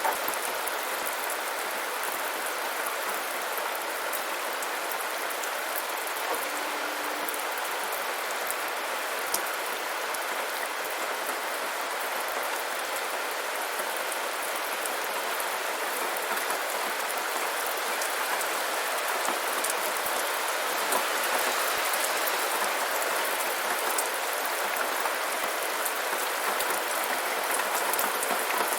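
Steady rainfall: a dense hiss of raindrops with many fine individual drop ticks, growing slightly heavier over the span.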